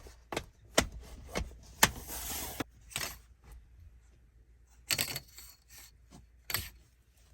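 Objects being handled at close range: a string of sharp clicks and knocks, with a short rustle about two seconds in and another cluster of knocks around five seconds in.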